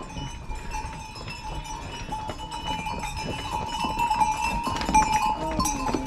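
Bells on horses along the trail jingling, a steady ringing with many small clinks and knocks.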